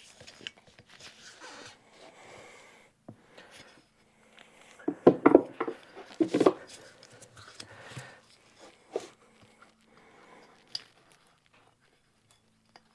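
Hand work on a small lawn tractor wheel rim: scraping, rubbing and clicking as the old rubber valve stem is pried and torn out from the back of the rim, with two louder strained bursts about five and six and a half seconds in.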